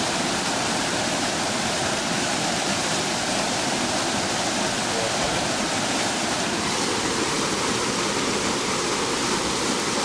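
Waterfall rushing steadily, an even noise of falling water with no change in level.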